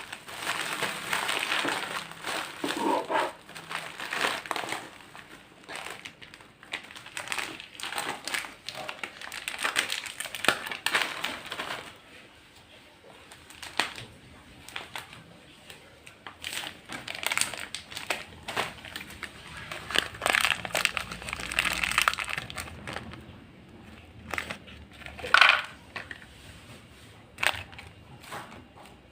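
Irregular crunching and crinkling of crisp snacks in bursts, some loud, some quieter.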